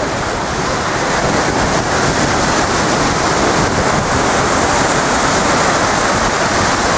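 Storm waves breaking and surging in a steady, loud wash, with wind buffeting the microphone.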